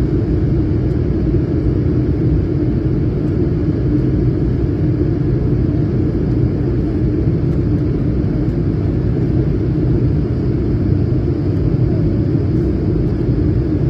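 Steady low rumble inside an Airbus A220-300 cabin beside the wing: its Pratt & Whitney PW1500G turbofan engine and rushing air, on approach to landing.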